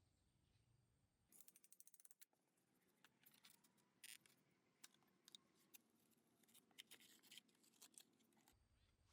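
Faint scratching and clicking from small-scale handwork: a quick run of clicks starting about a second in, then scattered sharp clicks and scraping that stop shortly before the end.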